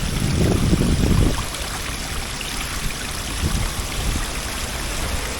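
Steady rush of water from a small waterfall running over shale, with a low rumble in the first second or so.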